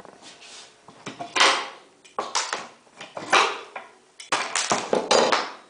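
Steel flat bar prying nails out of a pallet plank over a wooden block, the nails scraping out of the wood in four loud rasping bursts.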